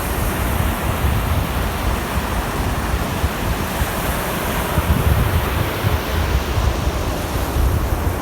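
Baltic Sea waves washing in steadily, with strong wind buffeting the microphone in a low, gusty rumble.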